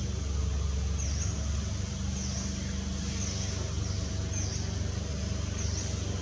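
Steady low rumble with a short high chirp repeating a little less than once a second.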